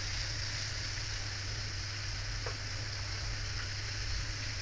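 Battered chicken pieces deep-frying in hot oil in an aluminium wok: a steady sizzle, with one faint click about two and a half seconds in.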